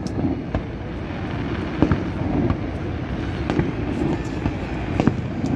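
Aerial fireworks shells bursting in a string of sharp bangs and crackles, roughly one to two seconds apart, over a steady low rumble.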